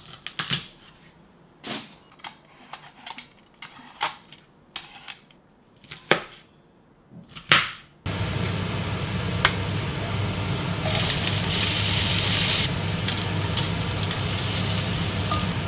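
Chef's knife chopping asparagus on a plastic cutting board, sharp chops at uneven intervals. About halfway through it gives way to steady sizzling of hot oil in a cast-iron skillet, which gets louder and brighter for about two seconds and then settles.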